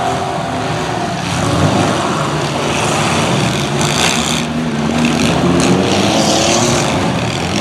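Several mid-size demolition derby cars' engines running and revving together in a steady, loud drone, with a brief sharp burst of noise about four seconds in like a crash between cars.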